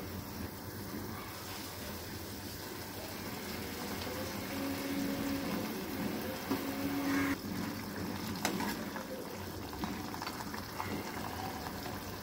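Spiced gravy bubbling at a boil in a frying pan as fried fish pieces are set into it, with a couple of light spatula knocks against the pan.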